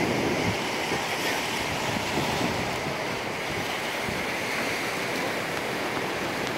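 Ocean surf washing over a rocky shoreline, a steady rushing noise that is a little louder in the first second, with some wind rumbling on the microphone.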